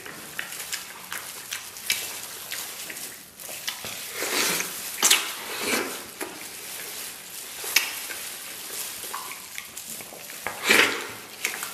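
Close-miked wet eating sounds of a man sucking, slurping and chewing soft, sticky braised beef hoof. A few louder slurps stand out, the loudest near the end.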